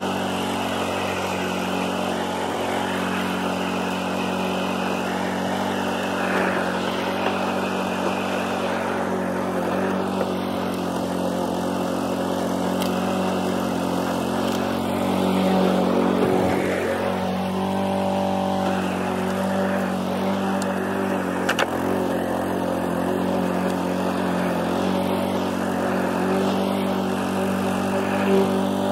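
An engine running steadily, its pitch dipping and then climbing again about two-thirds of the way through.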